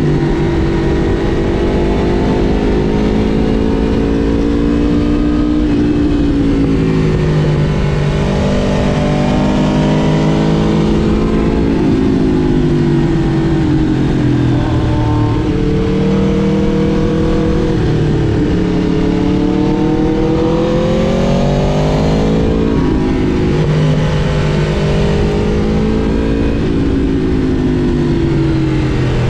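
Aprilia RSV4 Factory's 1099 cc V4 engine pulling through the gears, its pitch climbing and dropping several times, with one long rise about 18 to 22 seconds in. Heavy wind rush runs under the engine.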